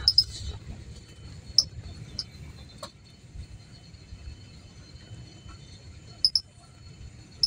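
Steady low rumble of a double-decker coach driving, heard from inside the upper deck, with short high-pitched chirps a few times.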